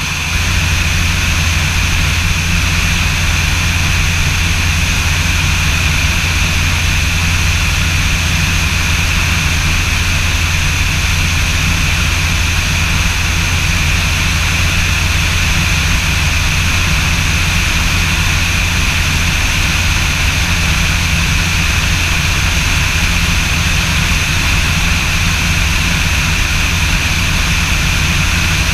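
Steady drone of a light aircraft's piston engine and propeller, heard from on board in flight, with a deep, even hum under a higher steady whine.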